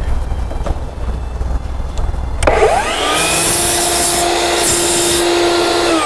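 Miter saw motor spinning up about halfway through, cutting through a wooden 4x4 post to square its end, then winding down with a falling whine as the trigger is released near the end.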